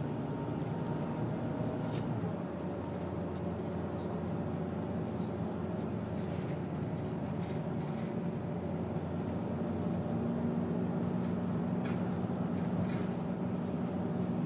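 City bus heard from inside the passenger cabin while riding: a steady drone of engine and road noise, its low engine hum growing a little stronger about ten seconds in.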